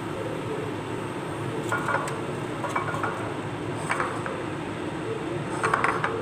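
Metal spatula clinking and scraping against a frying pan a handful of times while turning frying sweet potato pieces, the loudest strikes near the end, over a steady low hum.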